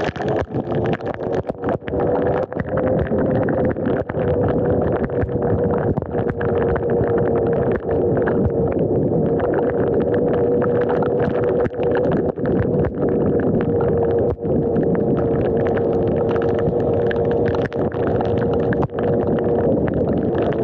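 Electric dirt bike's motor whining steadily at cruising speed, its pitch rising slightly in the first few seconds, over tyres hissing on a wet road.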